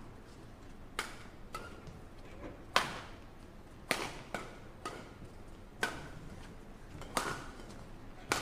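Badminton rackets striking a shuttlecock during a rally: sharp, separate cracks coming irregularly, roughly once a second.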